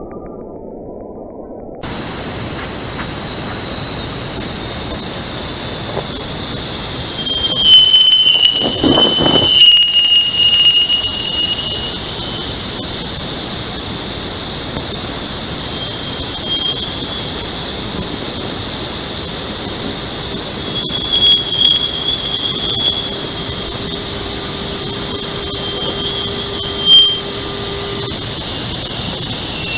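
A space-sound recording: a steady hiss like radio static, with high, thin whistling tones that slide and fade in and out, loudest about a third of the way in and again later, and a faint low steady tone in the latter half.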